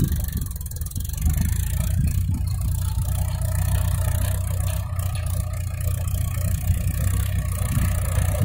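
Mahindra tractor's diesel engine running steadily under load as it pulls a trolley heavily loaded with soil, a continuous low engine drone that grows slightly stronger about a second in.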